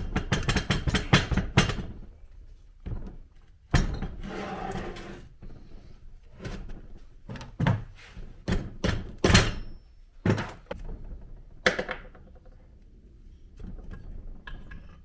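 Rubber mallet striking a Subaru EJ207 engine block to split the case halves apart: a quick run of blows, then single blows a second or two apart.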